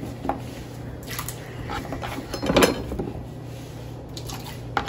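Light kitchen clatter: a few scattered knocks and clinks of utensils and dishes, the strongest about halfway through, over a steady low hum.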